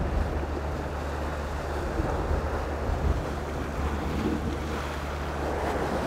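Sea swell washing and surging against the rocks, with wind buffeting the microphone as a steady low rumble.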